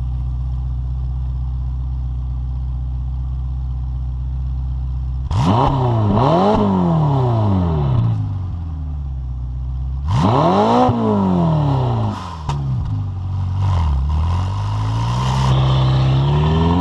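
Ferrari California T's twin-turbo V8 heard at the tailpipes: idling steadily, then two sharp blips of the throttle about five seconds in and another rev about ten seconds in, each rising and falling quickly. Near the end the revs climb steadily.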